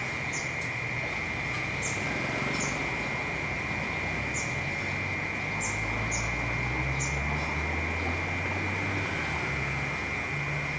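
Cicadas droning steadily at one high pitch, over a low traffic rumble that swells in the middle. Short, high chirps of birds come every second or so.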